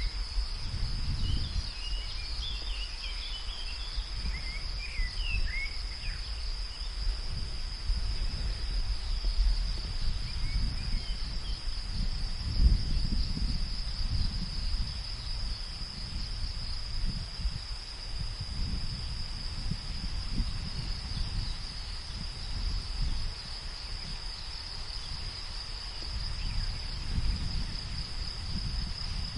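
Rural field ambience: a steady, high, unbroken chorus of crickets, with a few short bird chirps in the first six seconds and again around eleven seconds, over a low wind rumble that swells and fades.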